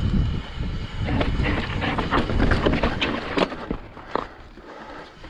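Mountain bike rolling over rock: wind rumbling on the microphone, with scattered sharp knocks and rattles from the bike. The rumble eases off in the last couple of seconds.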